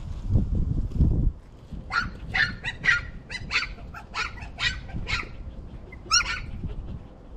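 A dog barking in a quick run of short, sharp barks, about three a second for some three seconds, then one more bark about a second later. A low rumble fills the first second or so.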